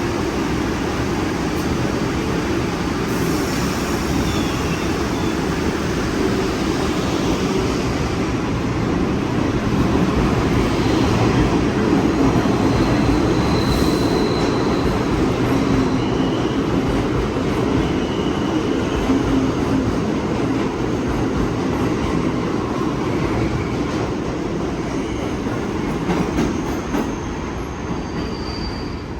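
New York City Subway R62A train departing: a steady rumble of motors and wheels on rail that builds to its loudest about ten to fourteen seconds in, then slowly eases. A few brief high wheel squeals come through in the middle.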